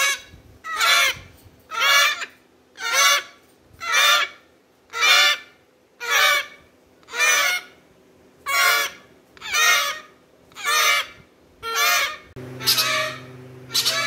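Young African grey parrots giving loud, harsh, honking calls, repeated evenly about once a second. Background music comes in near the end.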